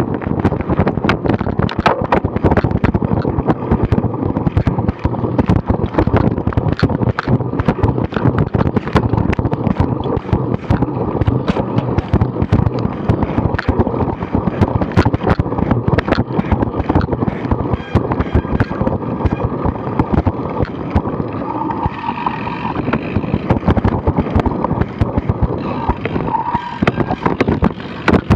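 Bicycle ridden over a bumpy grass cyclocross course, heard through a bike-mounted action camera: a loud, steady rumble of tyres and wind broken by constant rattling knocks as the bike and camera mount jolt over the ground.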